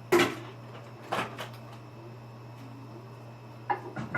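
Dishes clattering: a loud knock right at the start, then a few lighter clinks and knocks about a second in and near the end, over a steady low hum.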